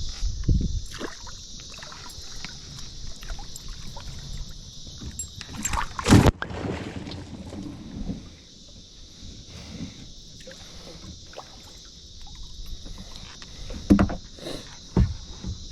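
Steady high-pitched insect drone throughout, with scattered knocks and handling noises from a boat. A loud thump comes about six seconds in, and two more near the end.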